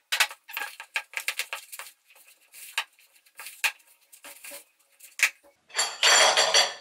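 Metal spoon stirring and scraping thick curd-cheese dough in a plastic bowl: a quick run of clicks and scrapes, sparser taps, then about a second of louder continuous scraping near the end.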